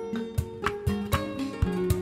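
Background music: a light tune of plucked notes over held tones.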